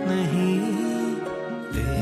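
Background music: a slow, tender instrumental passage of a Hindi film-style song, with gliding melodic notes and no voice.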